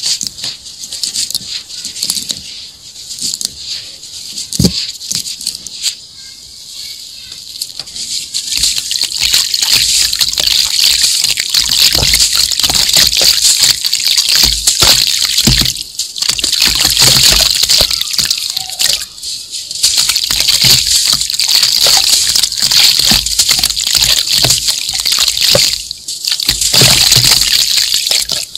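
Fine dry sand being scooped, rubbed and sifted through fingers into a bowl: a continuous grainy, rushing hiss that gets louder about eight seconds in and drops off briefly a few times as the hands pause.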